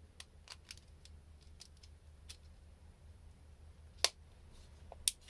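Flat-head screwdriver loosening the small terminal screws of a UK three-pin plug, with light scattered clicks of metal on the brass screws and plastic plug body, and two sharper clicks about four and five seconds in.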